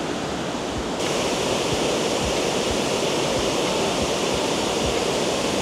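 Steady rush of water pouring over a dam spillway, a dense even roar that turns a little brighter and hissier about a second in.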